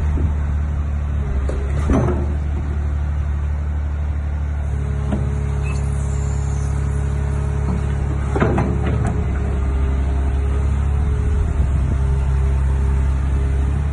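Caterpillar 345D hydraulic excavator's diesel engine running steadily. There are brief knocks about two seconds in and again past eight seconds.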